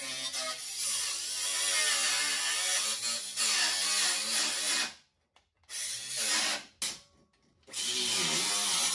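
Power cutting tool cutting through the truck's steel front crossmember, its pitch wavering as it loads up. It cuts out about five seconds in, runs again briefly, stops once more and then starts up again near the end.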